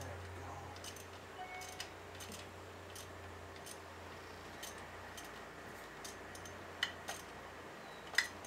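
Faint, scattered metallic clicks and taps, about a dozen of them and irregularly spaced, from hands working on parts inside a jet ski's engine bay, over a steady low hum.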